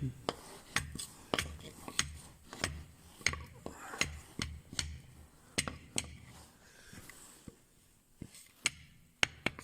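Light metallic clicks and taps, about one or two a second, from steel parts being handled and fitted: a washer and a protective ring going onto a bearing hub assembly.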